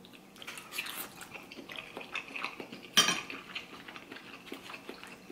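Metal spoon scraping and clinking against a steamed soup dumpling, with small clicks throughout and one sharp clink about three seconds in.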